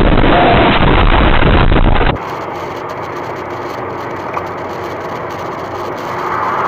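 A loud, even noise for about two seconds, then a sudden cut to quieter, steady car driving noise of engine and tyres on a highway, growing a little louder near the end.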